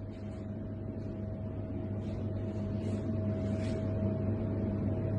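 A steady mechanical hum with a thin higher tone riding above it, slowly growing louder.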